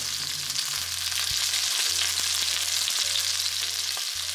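Chicken thigh sizzling steadily, skin-side down in a little hot oil in a frying pan over medium heat, as the skin browns.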